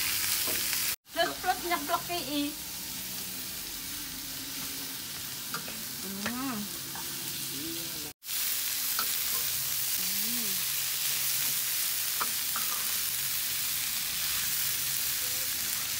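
Soybean sprouts and dried anchovies sizzling steadily as they stir-fry in a hot wok, with a metal spatula scraping and tossing them. The sizzle drops out abruptly twice, about a second in and again about eight seconds in.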